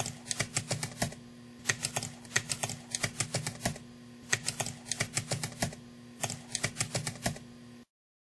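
Typing sound effect: quick keystroke clicks in about five bursts separated by short pauses, over a steady low hum, stopping abruptly shortly before the end.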